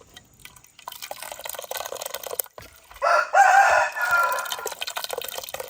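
A rooster crowing once, starting about three seconds in as one long call that fades out near the end, after a few faint clicks.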